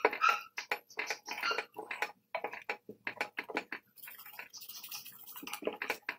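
Wooden spatula stirring a pot of stew, knocking and scraping against the stainless steel pot in a quick, irregular run of taps. About four seconds in, a paper packet of kare-kare seasoning mix rustles as it is poured in.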